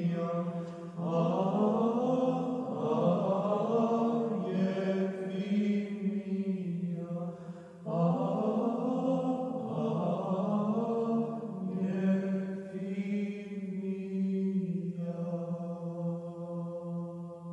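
Chamber choir singing slow, chant-like choral music over a steady held low note, with new phrases entering about a second in and again about halfway through. A final chord is held and begins to fade near the end.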